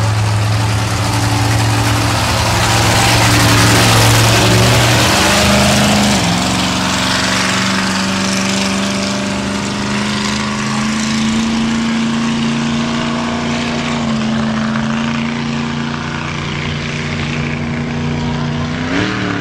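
Monster truck engine running hard at high revs with a steady drone. About six seconds in the pitch drops briefly and then settles higher, with a short rise again near the end.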